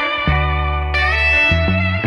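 Background instrumental music: held melodic notes over a low bass line that changes note a few times.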